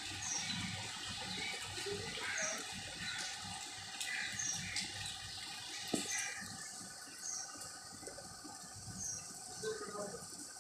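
Rain falling on a paved courtyard, a steady wash of noise. A short high chirp repeats about once a second throughout.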